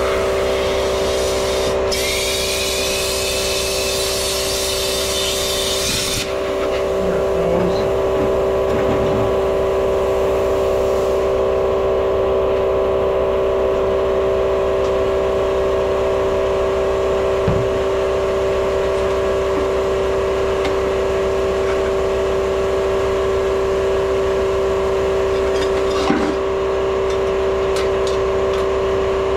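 Air compressor running steadily, with a plasma cutter's arc hissing for about four seconds, starting about two seconds in, as it cuts through steel plate. A single knock comes a little past the middle.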